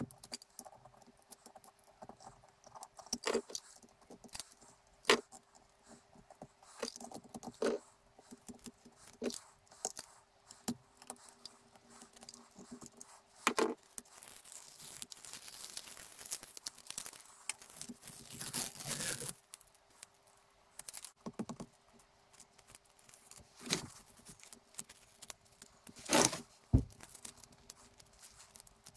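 Masking tape being cut with a knife and peeled off a freshly painted vice, with scattered small clicks and knocks of tool and metal handling, and a longer stretch of tearing tape past the middle.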